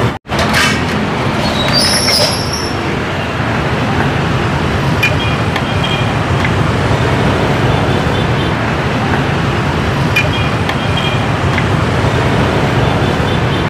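Steady street traffic noise, with a brief high squeal about two seconds in and a few faint short tones and ticks later on.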